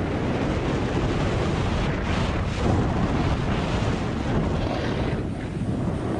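Snowmobile running at speed over snow, its engine drone mixed with heavy wind buffeting on the microphone.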